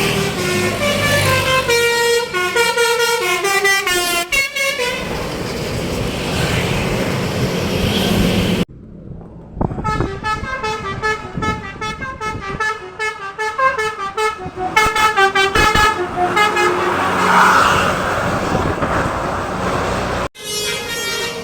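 Basuri telolet bus horns playing fast tunes of many short musical notes, loud. The sound breaks off suddenly about nine seconds in and again near the end as one horn gives way to another.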